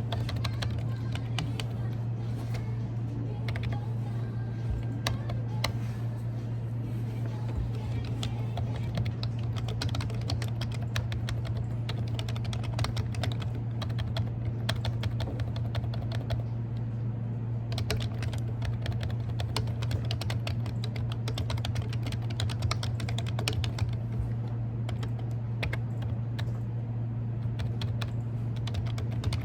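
Typing on a computer keyboard: a fast, irregular run of keystroke clicks, over a steady low hum.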